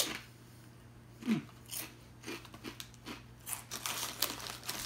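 A bite into a kettle-cooked potato chip with a sharp crunch, then crisp, irregular chewing crunches. About a second in there is a short falling hum.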